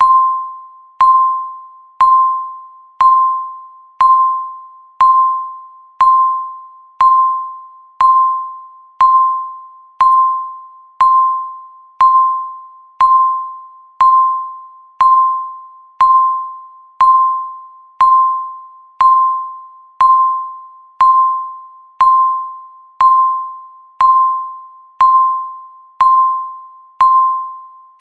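Countdown timer beeping once every second: a single mid-pitched, bell-like tone struck sharply and fading away before the next one.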